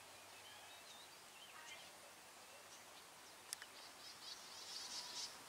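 Faint outdoor ambience with scattered high bird chirps, a single sharp click about three and a half seconds in, and a brief run of short high calls near the end.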